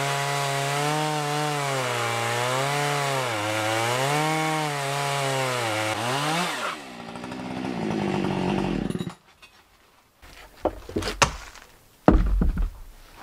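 Chainsaw on an Alaskan chainsaw mill ripping a log lengthwise under load, its pitch rising and falling as the cut goes. About six and a half seconds in the throttle is let off, the pitch drops, and the saw runs on more weakly until it stops about nine seconds in. Then come a few wooden knocks and a heavy thump as the freshly cut slab is handled and lifted off.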